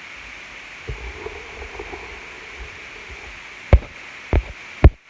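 Three loud, dull thumps about half a second apart near the end, over a steady hiss.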